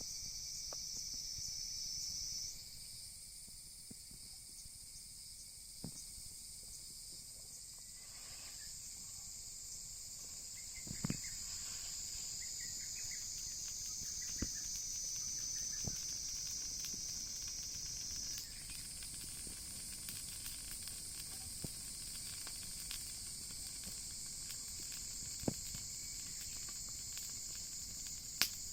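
A steady high chorus of insects trilling, shifting pitch a couple of times, with scattered sharp crackles and pops from a wood bonfire.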